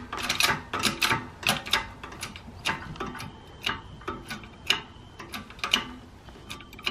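Hand-pumped bottle-jack shop press clicking with each stroke of its pump handle, about twice a second, the clicks growing fainter, as the ram presses an aluminum bushing into a Ford 8.8 differential housing.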